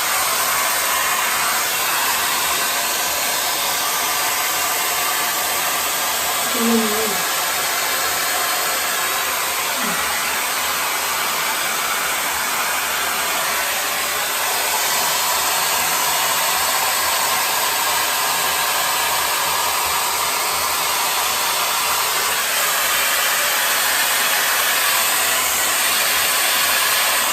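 Tessa Air Stick hot-air styler with its volume-brush attachment blowing steadily, an even rushing of fan and motor noise, cutting off abruptly at the end.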